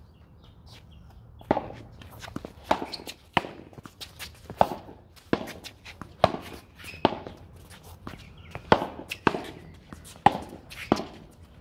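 Pickleball rally: paddles striking the ball with sharp pocks, about a dozen hits roughly half a second to a second apart, starting about a second and a half in and going on until near the end.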